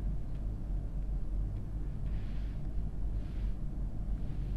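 Steady low background rumble, with two faint soft hisses about two and three seconds in.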